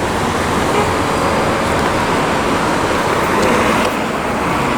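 Steady street traffic noise from passing cars and other road vehicles.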